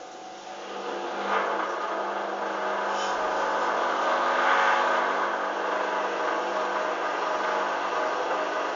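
Hoover Dynamic washing machine's motor starting up and turning the drum, swelling in about a second in, then running steadily.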